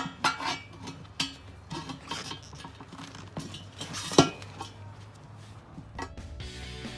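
Metal tire irons clinking and knocking against a steel wheel rim, several separate strikes with brief ringing, the loudest about four seconds in, as the new tire's bead is levered over the rim edge. Music comes in near the end.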